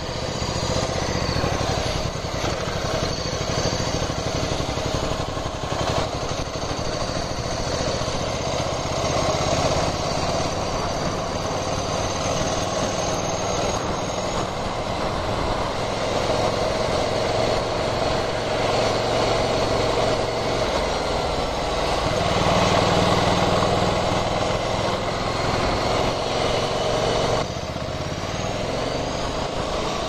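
Ducati Scrambler Sixty2's 400 cc air-cooled L-twin engine running while under way, with wind rushing over the microphone. The engine note pulls louder about two-thirds of the way in, then drops suddenly near the end as the throttle is eased off.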